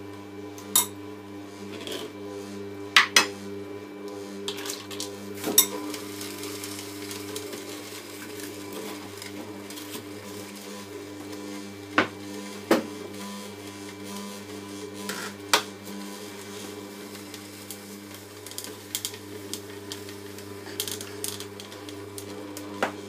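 Foodmatic slow juicer's auger motor running with a steady low hum as it presses frozen banana through. Several sharp clinks of a metal spoon and glass dishes come over it.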